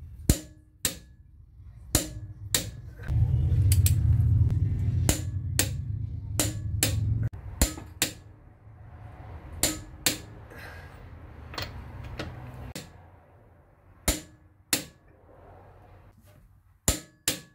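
Click-type torque wrench on a car's wheel lug nuts, giving sharp clicks again and again, often in pairs, as each nut reaches its 100 ft-lb setting. A loud steady low hum runs through the middle for a few seconds, then fades.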